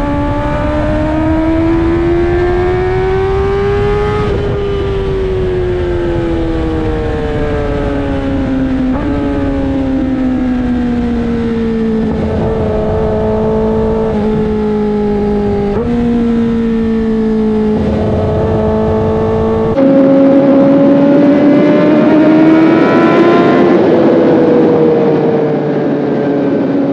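2024 Kawasaki ZX-10RR's inline-four engine under way: the revs rise for the first few seconds, then fall through a long deceleration in which the pitch jumps up several times as it is shifted down, and rise again near the end before easing off.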